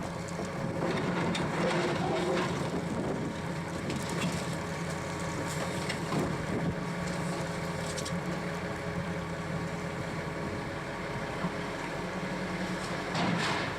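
Heavy diesel demolition machinery running steadily, with scattered crunches and knocks of debris being broken.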